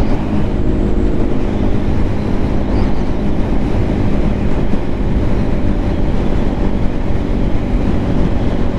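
Lifan KPM 200's single-cylinder engine running steadily at cruising speed, under heavy wind and road noise.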